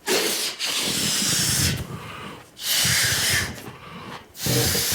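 A man blowing up a balloon by mouth: three long, hissing breaths blown into it, each about a second or more, with short pauses between them to draw breath.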